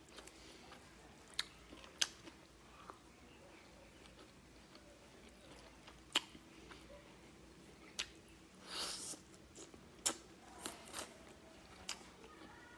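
Close-up chewing of a mouthful of rice and curry, with sharp wet clicks and smacks every second or two and a short hissing sound about nine seconds in.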